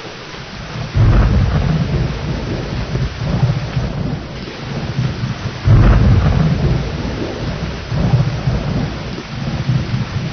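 Steady heavy rain with rolling thunder. A sudden loud clap comes about a second in, a stronger one just before six seconds, and lighter rumbles follow.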